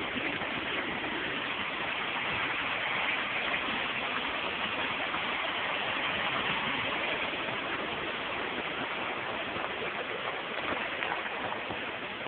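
Steady, unbroken hiss of water, from floodwater on the flooded pond's levee.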